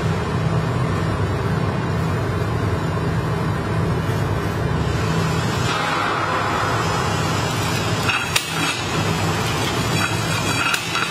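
Steady hum of a heat shrink tunnel's blower and conveyor running. Over it, clear plastic shrink film rustles as it is pulled off the roll, and there is a sharp click about eight seconds in.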